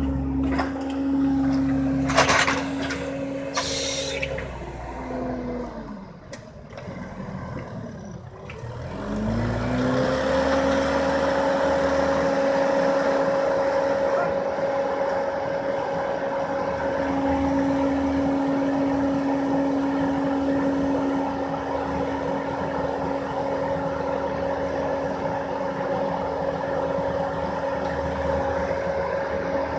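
Bobcat compact track loader's diesel engine running at high revs. Its pitch falls about five seconds in, then climbs back a few seconds later and holds steady. Two brief hisses sound around two to four seconds in.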